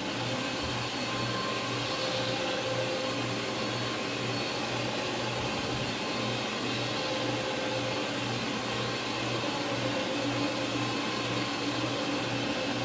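Small corded electric carpet-cleaning machine running steadily as it is pushed back and forth over carpet, a whirring motor noise with a low hum that pulses two or three times a second.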